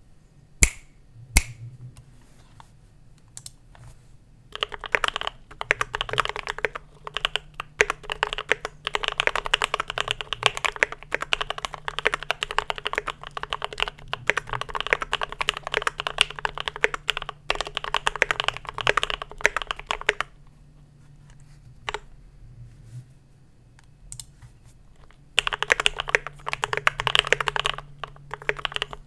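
Idobao ID80 mechanical keyboard with lubed, filmed Gateron Black Ink v2 linear switches being typed on. Two sharp loud clicks come in the first second or so, then a few scattered keystrokes, then fast continuous typing. Near the end there is a pause of a few seconds, after which the typing starts again. Recorded through a cheap webcam microphone, with a faint low hum underneath.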